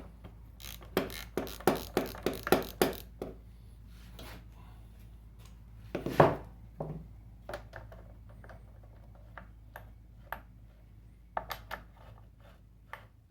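Metal tool clicks and knocks as a wrench takes the bar nuts off a Stihl MS 311 chainsaw: a quick, even run of sharp clicks in the first three seconds, one louder knock about six seconds in, then scattered lighter clicks.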